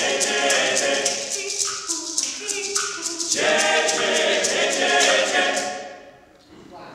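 Male a cappella ensemble singing close chords over a fast, steady percussive ticking, in the closing bars of a song. The final chord ends about six seconds in, and the church's reverberation rings on briefly.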